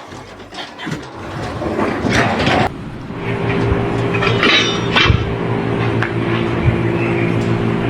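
An engine running at a steady pitch, coming in about three seconds in, with short bursts of clatter over it.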